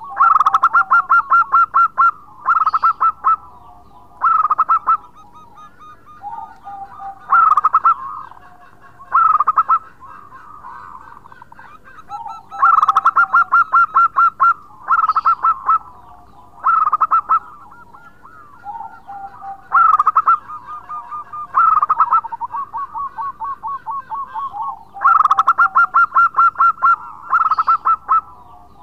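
Zebra dove (perkutut) singing loudly in full song: repeated phrases of rapid staccato cooing notes, one every two to three seconds, with softer quavering notes between the phrases.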